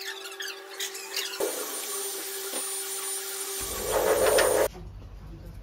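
Electric potter's wheel running with a steady hum while a loop trimming tool scrapes leather-hard clay off the foot of a small sake cup. The scraping turns louder and coarser near the end, then cuts off abruptly, leaving a quieter low rumble.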